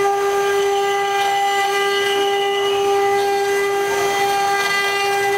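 Electric spindles of a four-head CNC wood router running at speed while carving wood, giving a steady high-pitched whine with a row of overtones and a light hiss of cutting.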